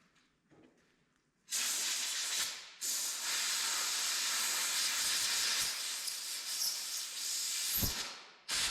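Welding arc laying a weld pass on the steel feed roller arm: a steady, crackling hiss that strikes up about a second and a half in, drops out briefly, and breaks off again near the end.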